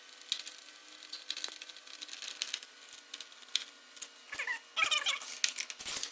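Light clicks and scrapes of screws being worked out of a Fujitsu wall-mounted mini split indoor unit to free its coil, with a short squeak about four and a half seconds in.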